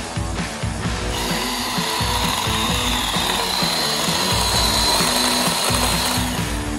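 Ryobi cordless chainsaw running and cutting through tree branches: a steady electric whine that starts about a second in and stops near the end.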